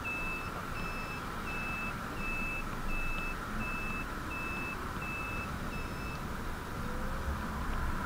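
Emmo Zone S electric motorcycle's turn-signal beeper going through a turn: a single high beep repeating evenly, about three beeps every two seconds, which stops about six seconds in as the turn is completed. Steady wind and road noise from riding lies under it.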